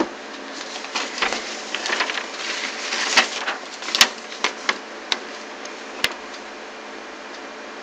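A run of short clicks and taps from computer mouse and keyboard use, packed close together for the first few seconds and then a handful of single clicks, over a steady background hiss.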